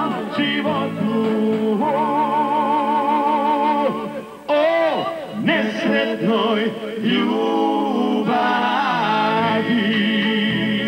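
A man singing a song into a microphone, backed by a live band, holding long notes with a wide vibrato; the music drops briefly a little before halfway, then picks up again.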